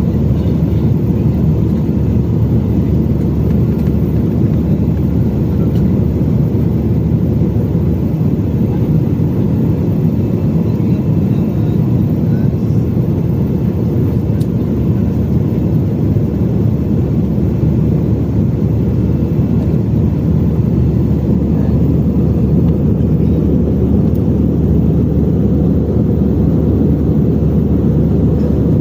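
Steady, loud low rumble of an airliner's engines and airflow, heard from inside the passenger cabin.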